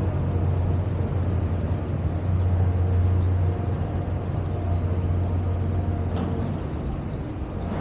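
Steady low drone of a car on the move: engine and road noise, with a few faint steady engine tones above the drone.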